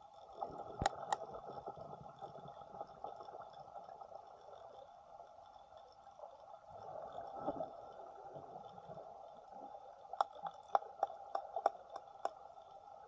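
Muffled underwater water noise with low gurgling, broken by a couple of sharp clicks about a second in and a quick run of sharp clicks near the end.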